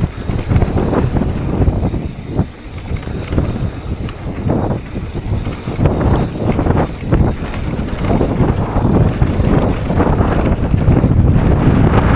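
Mountain bike running down a dirt downhill trail at speed: wind rushing over the microphone, with tyre noise and frequent knocks and rattles from the bike over rough ground. The wind rush grows stronger near the end.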